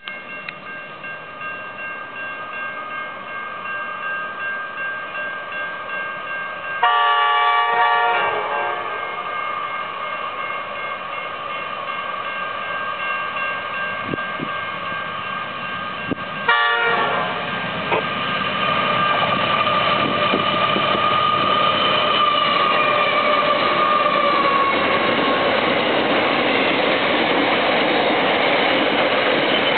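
Two NR class diesel-electric locomotives on a steel train sound their chime horn in two blasts, about seven seconds in and again about ten seconds later, over the steady pulsing ring of level-crossing bells. From about eighteen seconds the locomotives' engines and wheels grow loud as they pass, followed by loaded steel wagons rolling by.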